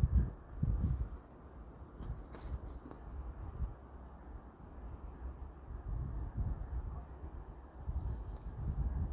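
Insects trilling at a high pitch in a steady chorus, with a faint pulse roughly once a second. Under it is an uneven low rumble, loudest at the start and near the end.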